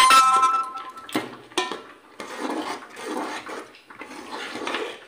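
A metal ladle clinks against an aluminium cooking pot and rings briefly, followed by a couple of knocks and then the swishing, sloshing of khiri (rice pudding in milk) being stirred in the pot with a spatula.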